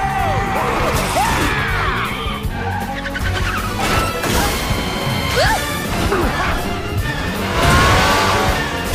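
Cartoon chase soundtrack: a van careening through city streets, its tires squealing and crashing, over a busy film score.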